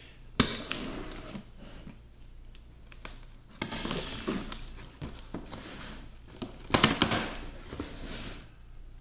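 Packing tape on a cardboard shipping box being slit and torn, with the cardboard flaps scraping and crinkling as they are pulled open. It comes in irregular rustles and rips, the loudest about half a second in, around three and a half seconds in and about seven seconds in.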